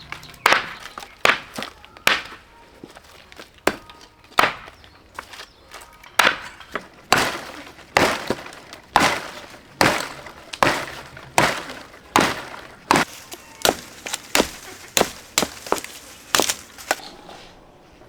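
A run of sharp chopping or hacking strikes, about one a second and slightly quicker in the second half, stopping about a second before the end.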